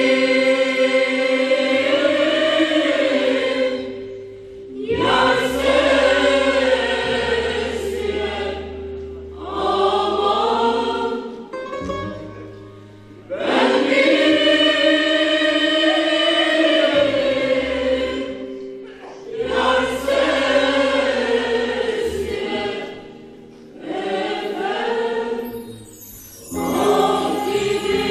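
Mixed choir of men and women singing a Turkish folk song. The song comes in phrases of a few seconds each, with short breaks between them.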